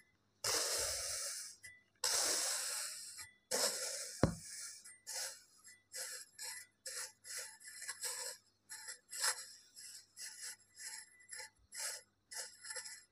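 Metal fork raking through kinetic sand, scraping and crumbling it: three long scratchy strokes, then a run of short quick scrapes, about two a second.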